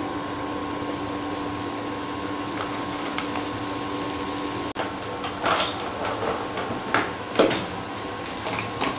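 Induction cooktop humming steadily with a faint fixed whine while a pan of spices and onions cooks on it. From about five seconds in there are a few short clicks and scrapes.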